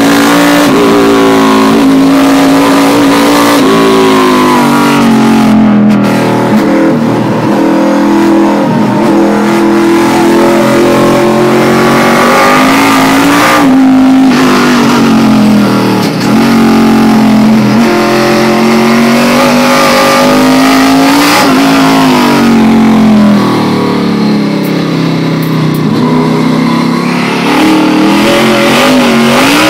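NASCAR stock car's V8 engine heard from inside the cockpit at racing speed, very loud, its pitch climbing under acceleration and falling back again and again, with several sudden drops as the driver shifts or lifts for corners.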